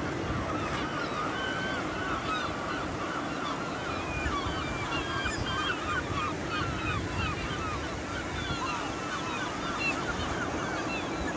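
A large flock of gulls calling, many short harsh calls overlapping without a break, over a steady wash of surf and wind.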